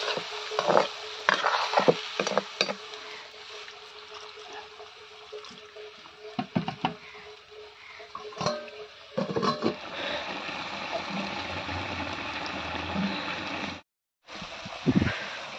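A metal ladle scrapes and knocks against an iron wok as meat in gravy is stirred, over a faint steady hum. From just past halfway the meat and gravy fry steadily in the wok, until a short dropout near the end.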